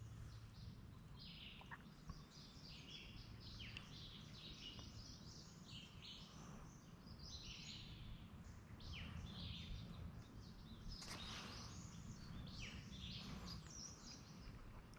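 Faint outdoor birdsong: many short chirps and warbled notes from songbirds, over a low steady background rumble.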